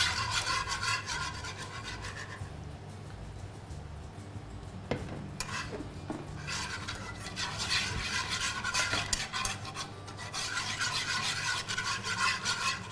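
A whisk scraping quickly against a ceramic-coated pan as starch is whisked into water. It comes in spells, with a quieter gap of a few seconds and a couple of light clicks after the first spell.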